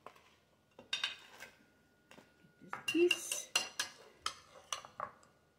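Table knife clinking and scraping against a ceramic bowl and plate while scooping garlic herb butter and spreading it on toast. The clicks and scrapes come in short clusters, once about a second in and again from about three to five seconds in.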